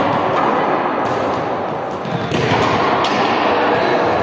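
Balls thudding and bouncing on a sports-hall floor during a team drill, with a few sharp knocks over a busy, echoing background.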